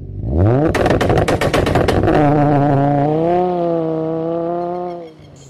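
Intro sound effect: an engine revs up, then a rapid string of sharp bangs, about a dozen a second for over a second, then a steady engine note that fades out near the end.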